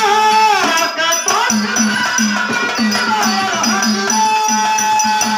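Devotional bhajan music: a man singing a bending melody, ending on a long held note, over a hand drum keeping a quick steady beat and small hand cymbals jingling in time.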